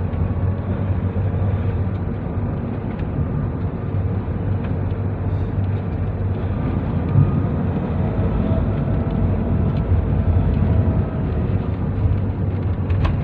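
Inside the cabin of a Nissan NV350 Urvan van cruising at about 60 km/h: steady engine and road rumble, with no rattle heard. The abnormal knocking it was being tested for seems cured, with one small click near the end.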